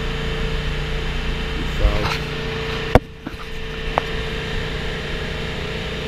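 Steady hum of ship engine-room machinery with a constant tone. A sharp click about three seconds in is followed by a quieter hum, and another short click comes about a second later.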